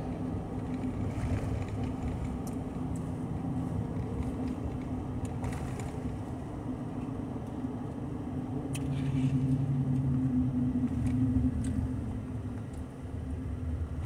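Steady hum of a car heard from inside the cabin, with a low drone that swells for a few seconds in the second half, and a few faint clicks.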